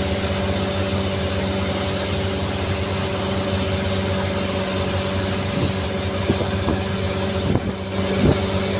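Longtail boat's engine running at a steady pitch under way, a continuous drone over a broad hiss, with a brief dip and a few short knocks near the end.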